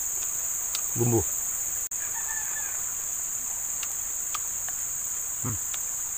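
A steady, high-pitched chorus of insects droning without a break, with the sound cutting out for an instant about two seconds in.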